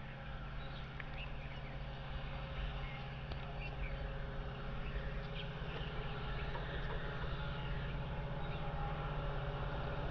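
Distant WDP4D diesel locomotives, with two-stroke EMD engines, approaching: a low, steady engine drone that grows gradually louder. Small birds chirp lightly in the background.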